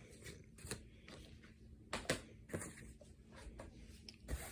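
A few light clicks and knocks of plastic Blu-ray cases being handled and set down, scattered irregularly, with the loudest pair about two seconds in.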